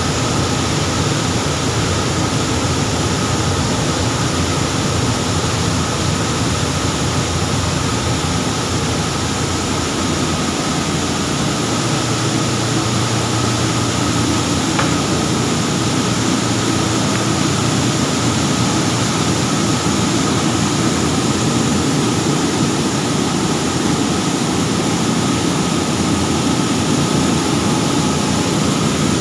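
Grain dryer plant machinery running: the steady, loud noise of the dryer's blower and grain-handling machinery, with a thin steady whine above it.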